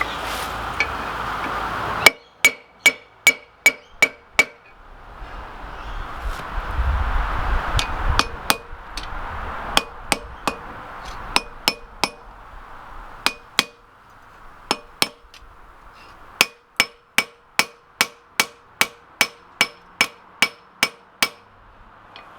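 Blacksmith's hand hammer striking a steel ring spanner on an anvil, each blow ringing with the same clear metallic tone. The blows come in quick runs of about three a second, one shortly after the start and a longer one near the end, with scattered single blows between. A steady rushing noise fills the start and the middle, between the runs of blows.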